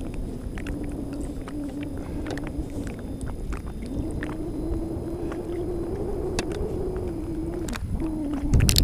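A steady drone from a boat motor, its pitch wavering slightly, over wind rumble on the microphone and scattered small knocks and splashes. A loud thump comes just before the end.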